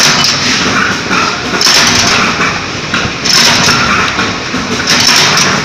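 Mechanical flywheel power press running steadily, with a louder clanking cutting stroke about every second and a half or so as slipper soles are punched out of sheet material.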